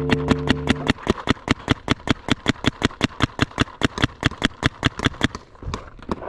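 Tippmann Stryker paintball marker firing in a rapid, even string of about seven shots a second, thinning out and stopping near the end. A held musical chord sounds under the first second.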